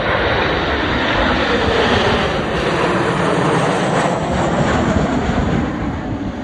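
Six Kawasaki T-4 jet trainers passing low overhead in delta formation: loud, steady turbofan jet noise, with a high whine that slowly falls in pitch as they go by.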